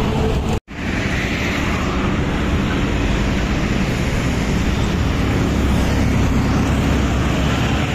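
Steady road traffic noise on a highway bridge, a continuous rumble and hiss of passing vehicles, with a brief drop-out about half a second in.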